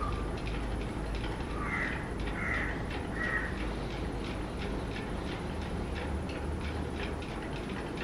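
A crow caws three times in quick succession, about two to three and a half seconds in, over a faint steady high-pitched hum.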